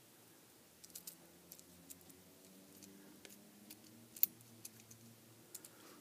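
Light, scattered clicks and taps of small plastic contact-block parts and springs being handled and snapped together by hand, with one sharper click about four seconds in.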